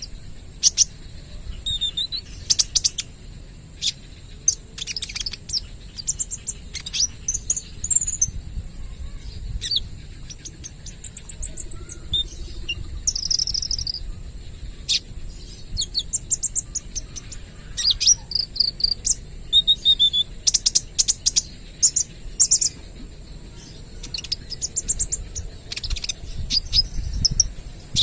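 Kolibri ninja sunbird singing, a young bird in speckled moult: rapid strings of short, sharp, high twittering notes fired off again and again with brief pauses between. A steady high-pitched whine, like an insect, runs underneath.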